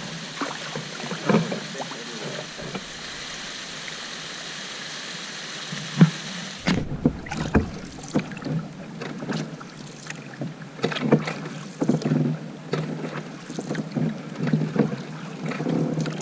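Canoe being paddled on calm water: irregular paddle strokes with short splashes and knocks. For the first few seconds a steady hiss from a small waterfall sits underneath.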